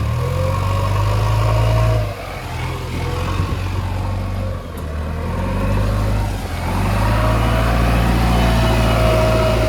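Heavy diesel engine running under load, easing off about two seconds in and again near five seconds, then building back up, with a faint whine rising in pitch over it.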